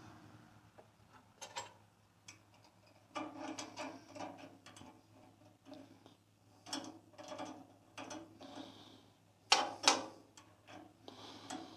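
Irregular metallic clicks and clatter from an Allen wrench working a screw on a bandsaw's bearing guide assembly, with the sharpest clicks about three-quarters of the way through.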